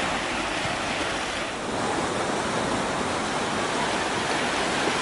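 Ocean surf washing up a sandy beach: a steady rush of breaking waves.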